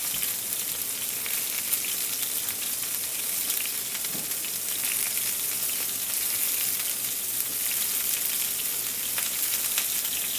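Marinated chicken breasts searing in hot olive oil in a heavy stainless steel pan: a steady sizzle with fine crackles and spits as the meat browns undisturbed.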